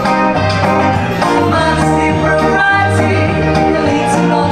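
Live pop song: a woman sings into a microphone over electric guitar, with a sustained bass line underneath.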